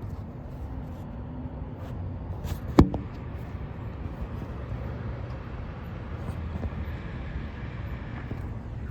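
Steady low rumble of road traffic and passing cars, with a single sharp click about three seconds in.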